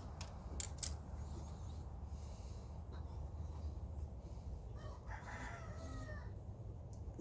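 Two sharp clicks just under a second in, then a rooster crowing faintly, one crow of about a second, over a steady low background hum.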